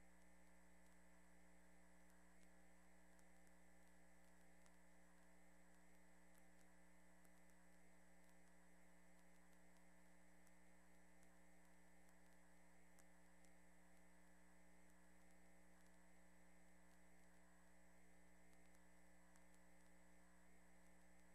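Near silence: only a faint, steady electrical hum with a thin high whine, unchanging throughout.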